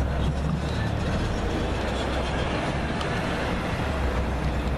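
Low, steady rumble of a pickup truck's engine and wheels as it rolls off along the rails.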